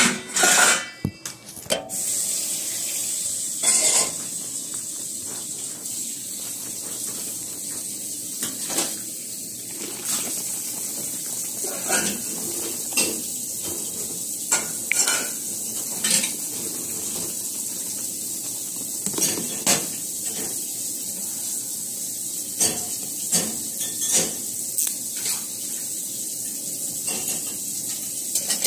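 Kitchen handling sounds: clinks and knocks of containers and utensils on a counter, a cluster of them in the first two seconds and scattered ones after, over a steady high hiss.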